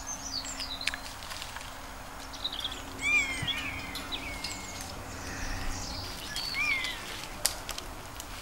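Birds calling in woodland: short whistled chirps that rise and fall, clearest about three seconds in and again near the end. A faint steady hum runs underneath, and there is a sharp click late on.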